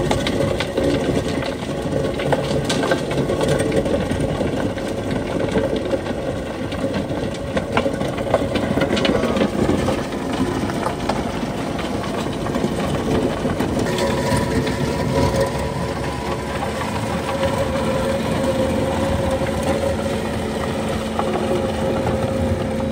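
Skid steer running under load with a hydraulic rotary grinding attachment chewing through concrete and rocky ground: a steady engine and hydraulic drone with frequent sharp knocks and rattles from stones and concrete chunks hitting the rotor.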